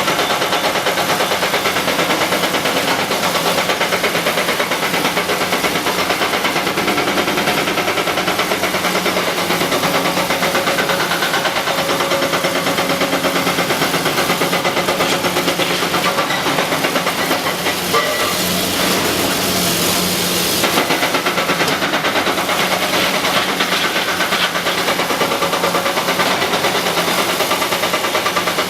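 Diesel engine of a Cat 321C LCR hydraulic excavator running steadily as the machine works, with a hissing stretch about two-thirds of the way through.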